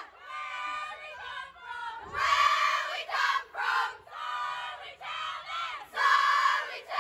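A group of young voices chanting and shouting together, with loud unison bursts about two seconds in and again near the end, and quieter calls between.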